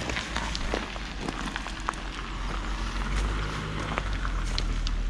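Rustling and irregular crackling from tent nylon being handled and dry fallen leaves underfoot, over a low steady rumble.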